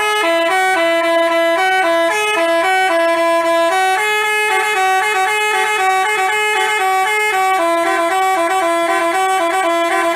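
Indonesian 'telolet' bus horn of the Basuri type playing a quick melody of short stepping notes.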